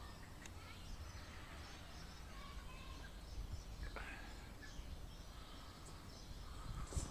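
Quiet outdoor ambience: a steady low rumble with birds chirping faintly in the distance, and a light knock near the end.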